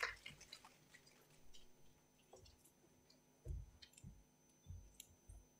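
Near silence, broken by faint scattered clicks and four soft low thumps in the second half: the small handling noises of a presenter settling in at a lectern.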